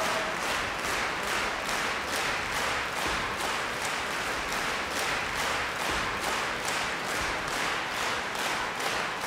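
Concert-hall audience applauding, the clapping falling into a steady rhythm in unison at about three claps a second.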